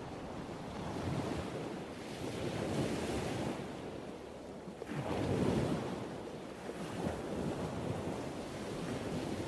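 Ocean surf: waves washing in continuously, with a wave breaking more loudly about five seconds in and then receding.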